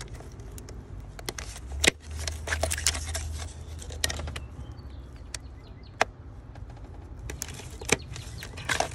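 Plastic wiring-harness connectors being unlatched and pulled off a BMW N20 engine control module: a series of sharp plastic clicks and clacks, the loudest about two seconds in, another around six seconds and another near eight seconds.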